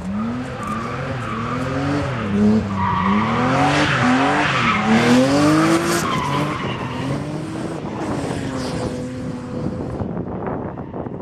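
Drift car's engine revving up and down again and again as the driver works the throttle through a slide, with the tyres screeching as they spin.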